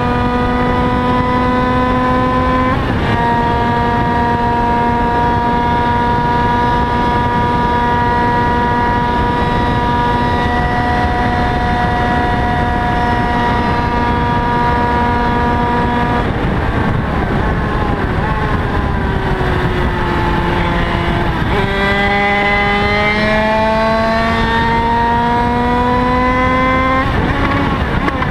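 Kreidler 50cc two-stroke racing motorcycle at high revs, heard onboard over wind rush. The high engine note holds steady after a gear change about three seconds in, falls away as the rider backs off for a corner, then climbs again through gear changes near the end.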